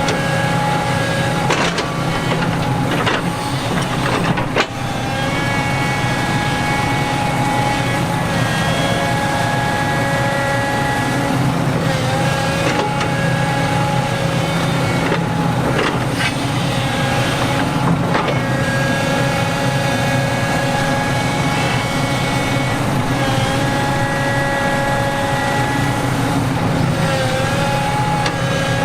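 Heavy diesel construction machinery running steadily, with several steady tones held over the engine and a few sharp clanks in the first five seconds.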